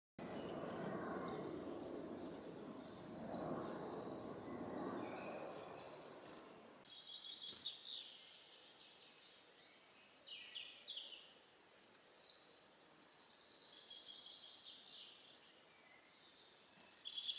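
A low rushing noise for about the first six seconds, then woodland birds singing and calling in short, high repeated phrases, the loudest near the end.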